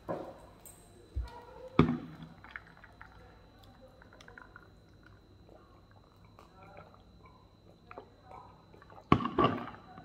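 Person drinking water from a plastic cup at a glass-topped table: knocks and bumps early on as he settles at the table, faint sips and swallows in the middle, and a sharp clack of the cup set down on the glass about nine seconds in.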